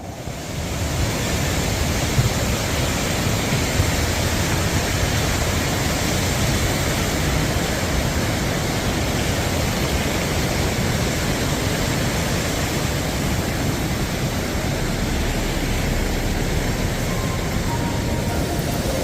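Mountain valley stream rushing steadily, a continuous even noise of running water.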